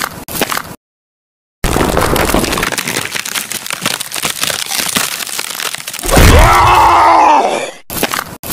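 Cartoon fight sound effects: a stretch of crackling, crunching noise, then about six seconds in a loud pitched sound that rises and falls for under two seconds, followed by short choppy bursts.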